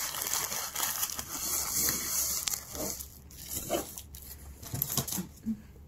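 Foil-lined fast-food burger wrapper crinkling as it is handled, for about three seconds, then a few scattered short clicks.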